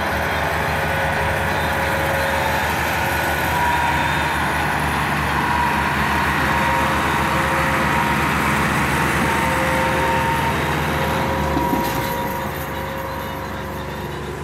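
Massey Ferguson diesel tractor engines running steadily under heavy load as they haul a loaded sugarcane trolley. The engine sound eases off a little about twelve seconds in.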